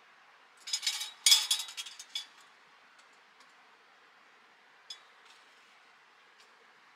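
A burst of clinking and rattling from small hard objects being handled, lasting about a second and a half, followed by a few faint ticks.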